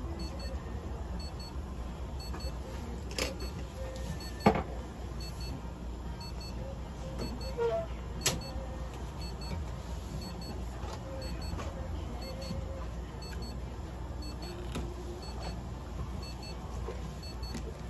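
Steady low hum of running equipment, with faint, evenly repeating high electronic beeps and a few sharp clicks, the loudest about four and a half seconds in.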